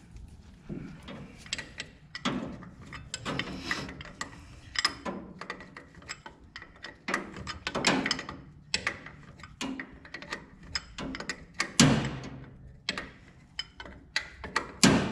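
Ratchet wrench clicking in short spells, with metal clinks and taps, as the carburetor's mounting nuts are tightened onto the tractor engine's intake.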